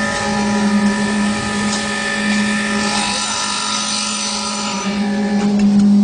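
Concrete mixer pump running steadily: a constant machine hum with a strong deep tone and higher steady overtones.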